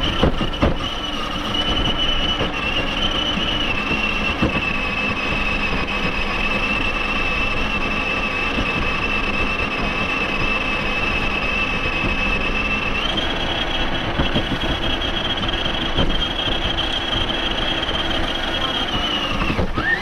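Electric motor and drivetrain gears of an RC rock crawler whining steadily under throttle. The high whine steps up in pitch about two-thirds of the way through.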